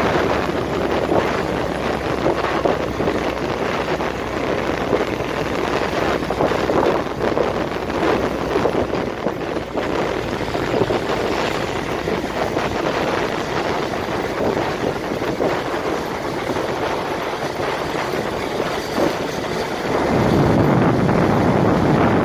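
Military jeep driving along a gravel track, its engine and road noise steady under wind buffeting the microphone. About twenty seconds in the sound grows louder and deeper as the jeep closes on the halftrack ahead.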